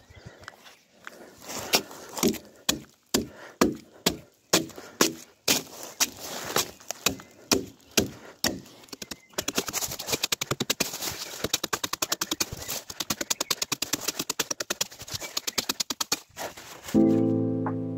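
A hand tool chopping into a log, about two sharp knocks a second, then a faster run of quick, lighter strikes. Music starts loudly near the end.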